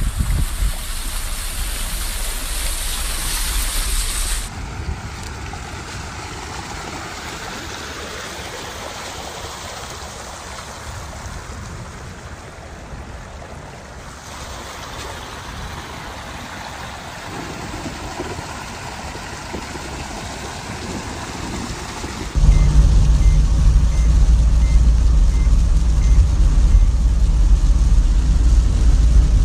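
A vehicle running along a flooded road, with wind buffeting the microphone, for the first few seconds. Then a steady rush of muddy rainwater runoff streaming over the ground. About 22 seconds in, this gives way to the loud, steady hum of the vehicle's engine and road noise inside the cab, with a faint string of short beeps.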